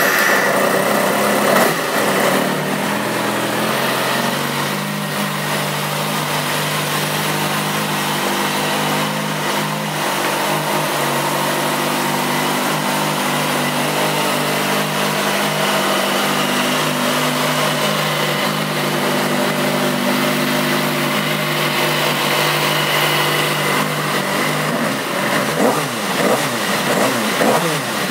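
2007 Kawasaki Ninja ZX-6R's 599 cc inline-four engine idling steadily just after starting, its idle speed dropping a little in the first few seconds. About 25 seconds in, the throttle is blipped in several quick revs that rise and fall.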